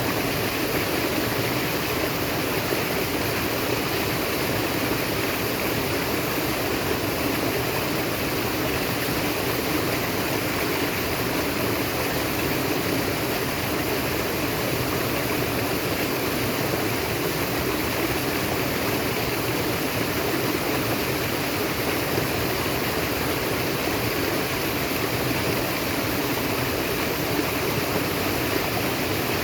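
Naturally flowing water running steadily, a continuous rushing stream with no breaks.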